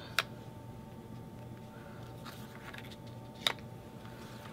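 Two sharp taps about three seconds apart as photos are set and pressed down by hand onto a scrapbook page, over a faint steady hum.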